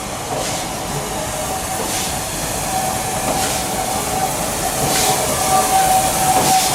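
Steam locomotive hissing steam, with a regular beat about every second and a half.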